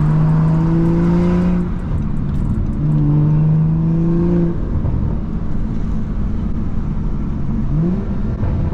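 BMW 340i's B58 turbocharged inline-six through a Valvetronic axle-back exhaust with the resonators deleted, pulling hard in two rising bursts separated by a gear change about two seconds in. It then settles to a lower steady drone, with a brief rev near the end.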